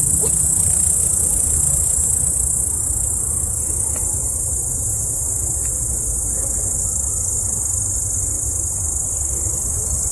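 Crickets chirring in a steady, high, unbroken buzz over a low rumble.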